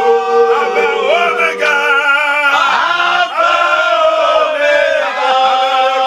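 Several men's voices singing a worship song together in a chant-like style, the held notes overlapping.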